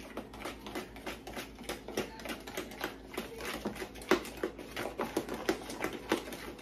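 A metal fork beating cornbread batter in a mixing bowl: a rapid, irregular run of clicks and taps as the fork strikes the bowl.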